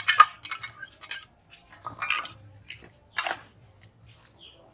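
Steel utensils clinking and scraping in a steel mixing bowl as spice paste is added and a metal spatula turns raw mutton pieces, in a few separate strokes: one at the start, one about two seconds in and one a little after three seconds.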